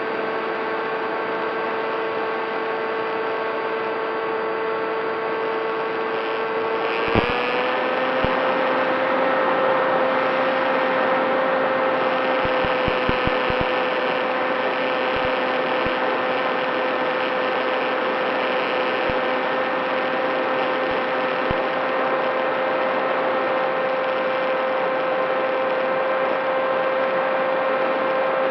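Model airplane's propeller motor running at steady throttle: a pitched whine that steps up slightly in pitch about seven seconds in, then holds steady, with a few faint clicks.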